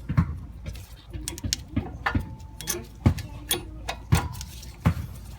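Irregular metallic clicks and knocks from tools and brake parts being handled during a front brake pad change, about one every half-second to second, some with a short ring. A brief steady tone sounds about two seconds in.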